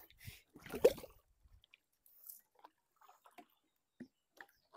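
Scattered faint drips and small splashes of water, with one brief louder sound about a second in.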